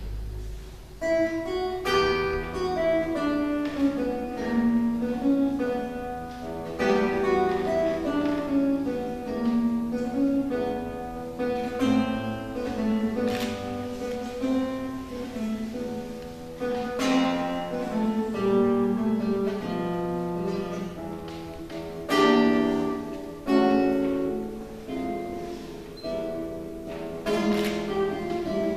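Classical guitar played solo, starting about a second in: a plucked melody over bass notes, with a few full strummed chords along the way.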